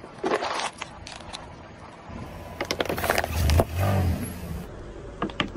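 Glass soda bottles cracking and crunching under a car tyre, in two bouts of crackling: a short one at the start and a longer one from about two seconds in. A low rumble from the rolling tyre comes in the middle of the second bout.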